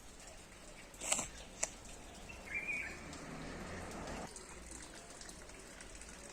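Outdoor ambience with a bird's brief chirp about two and a half seconds in, after two sharp clicks about a second in.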